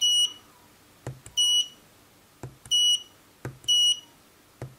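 Mustool MT8206 graphical multimeter giving its key-press beep as its arrow button is pressed repeatedly to change the zoom: four short high beeps about a second apart, each just after the click of the button.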